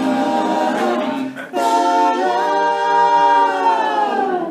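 All-male a cappella group singing in close harmony, ending the song on one long held final chord that bends down slightly and cuts off.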